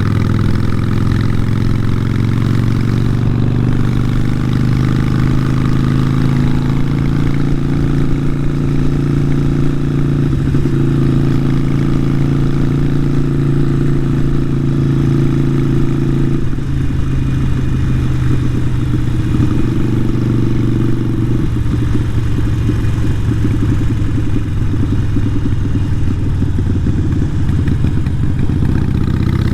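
Harley-Davidson Sportster Iron 883's air-cooled V-twin running loud through a Vance & Hines aftermarket exhaust. The engine note climbs slowly, drops suddenly a little past halfway, rises briefly, then drops again.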